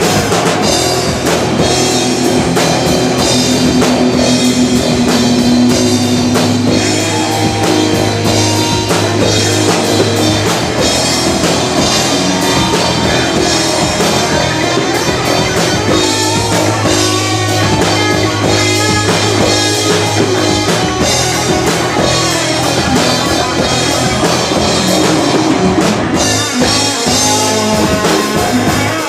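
Rock band playing live: electric guitar, bass and drum kit, loud and steady.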